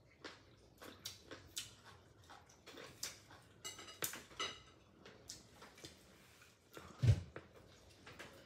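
Eating at a table: chewing and lip-smacking mouth sounds, with light clicks of chopsticks and fingers on dishes. One louder low thump comes about seven seconds in.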